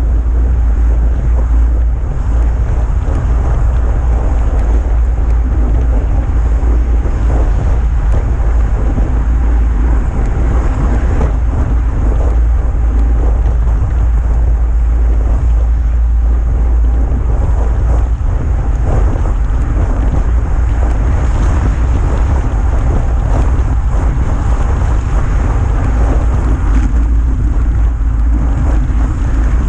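Wind buffeting the microphone of a GoPro mounted on a moving road bike, a loud steady low rumble, with road noise from the ride underneath.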